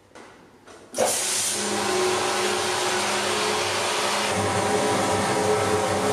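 Vixen Aquablast wet blasting cabinet starting about a second in and running, a steady loud hiss of water-and-media spray from the blast nozzle onto an engine part, with the hum of the machine's pump under it.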